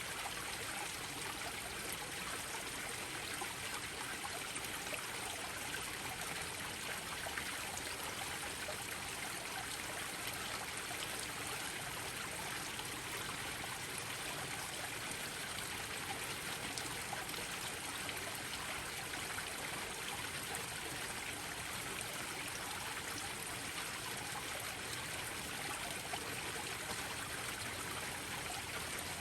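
Small garden-pond waterfalls splashing and trickling steadily into a koi pond, an even rushing of water.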